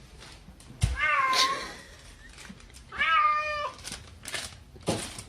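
Domestic cat meowing twice, once about a second in and again about three seconds in, with a sharp thump just before the first meow.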